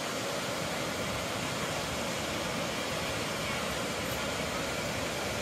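Steady rushing of the Kravica waterfalls, many cascades of the Trebižat River pouring into a pool, an even noise with no breaks.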